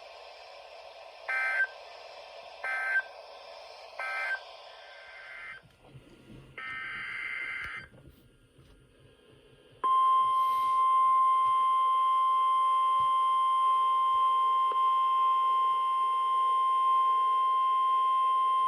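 NOAA Weather Radio alert tones over receiver hiss. Three short warbling SAME data bursts mark the end of the previous message, and a longer data burst follows about seven seconds in. Then the steady 1050 Hz warning alarm tone sounds for about nine seconds, the signal that a new warning is about to be read.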